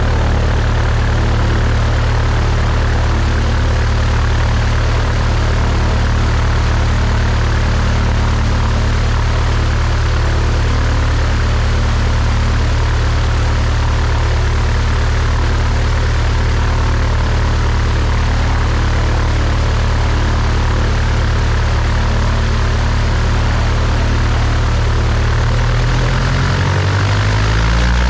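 Cessna 172's piston engine and propeller running steadily at low power on the ground. Near the end the engine note rises as power is brought up.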